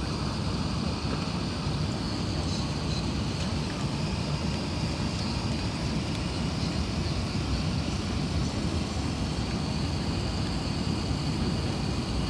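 Steady cabin noise inside an Airbus A380-800 airliner: an even rush of airflow and engine drone, strongest in the low range, with no change in level.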